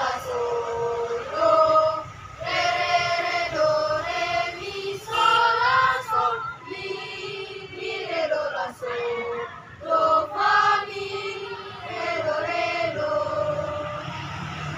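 Mixed choir of schoolchildren, boys and girls, singing together from songbooks, in sung phrases of a second or two with short breaks between them.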